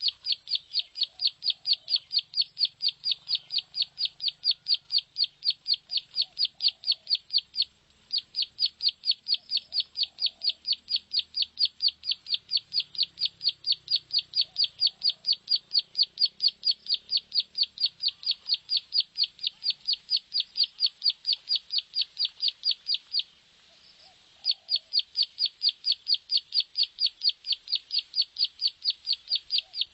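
Prenjak sawah (rice-field prinia) song played as a lure call: a rapid, steady string of high, sharp notes, about four to five a second. It breaks off briefly about 8 s in and again for about a second near 23 s. Faint lower calls sound underneath every few seconds.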